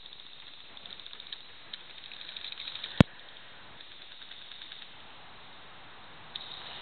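A single sharp crack of an airsoft gun shot about three seconds in, over faint rustling and light ticking.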